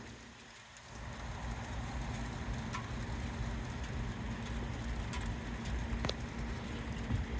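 Wind gusting against the phone's microphone: a steady rushing rumble with a few faint clicks.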